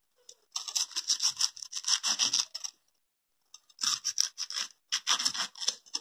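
A banana flower being cut up with a blade: two spells of rapid cutting strokes through its fibrous bracts, the first from about half a second in to nearly three seconds, the second from about three and a half seconds to near the end.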